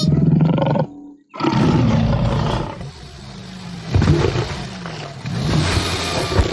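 An animal roaring: a short roar, a brief break about a second in, then a longer run of growling roars.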